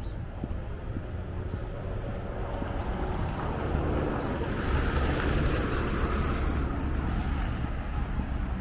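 A vehicle driving past on the street, its tyre and road noise swelling to a peak about halfway through and then fading, over a steady low rumble of wind on the microphone.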